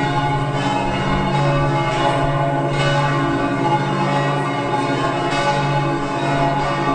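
Several church bells ringing together in a continuous peal, their tones overlapping without a pause.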